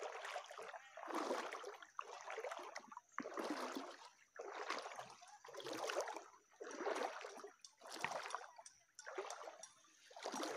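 Footsteps wading through a shallow stream, a splash and slosh of water with each step, about once a second.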